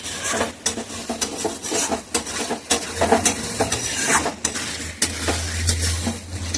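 A ladle stirring and scraping chicken curry in a pot, with repeated clinks against the pot over the sizzle of the cooking masala.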